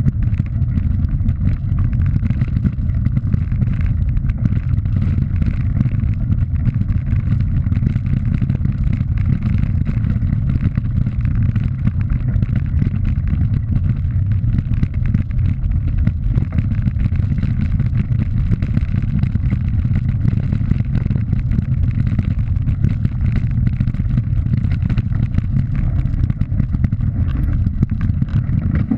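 Steady low rumble of wind buffeting a bike-mounted action camera, mixed with mountain bike tyres rattling over a loose gravel track.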